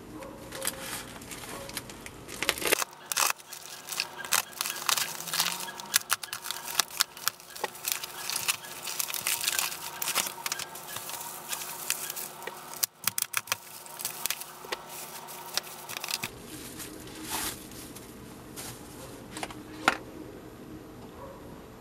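A plastic courier mailer being slit and torn open, then a long stretch of crinkling and crackling as the bubble-wrapped parcel is pulled out. The last few seconds are quieter, with only a few light clicks of handling.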